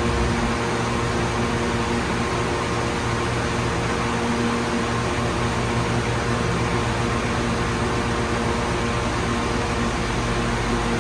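Turbocharged Hyundai Genesis Coupe 3.8 L V6 idling on a chassis dyno: a steady low hum under an even, fan-like rush of noise.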